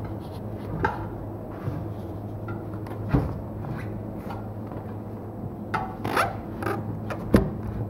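Tractor tyre rubber rubbing and creaking as a person treads around on the sidewall of an agricultural tyre on its steel wheel, pressing it down during a tyre change. Irregular scrapes and squeaks, with a sharper knock a little before the end.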